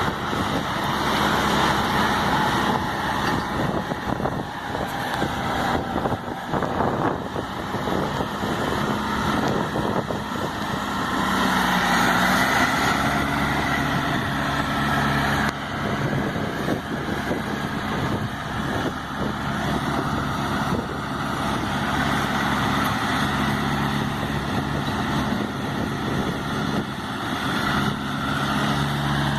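John Deere 6130R tractor's diesel engine running steadily while it pulls a John Deere F441R round baler baling silage, with the baler's machinery running along with it. The engine note dips and recovers briefly about twelve seconds in.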